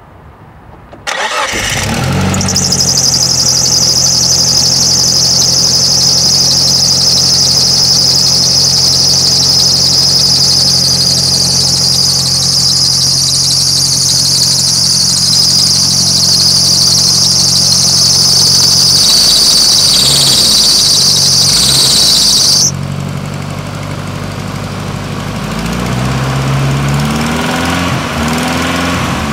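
Nissan CA18DET 1.8-litre turbo four-cylinder engine starting about a second in and then idling, with a knock that the owner suspects comes from worn big-end or main bearings. A high-pitched belt squeal runs over the idle and cuts off suddenly about 23 seconds in. Near the end the engine is revved up and down several times.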